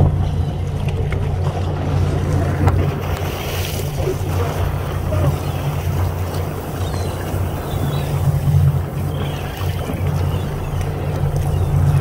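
A fishing charter boat's engine running steadily, a low hum with wind and water noise over it.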